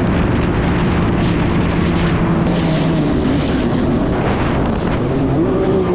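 Jet ski engine running under way, with a steady haze of rushing water and wind over it.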